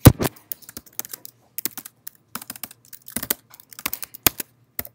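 Typing on a computer keyboard: one hard keystroke at the very start, the loudest, then short runs of quick, uneven key clicks.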